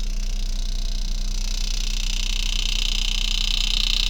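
Steady low electrical hum with a high hiss that grows louder about halfway through.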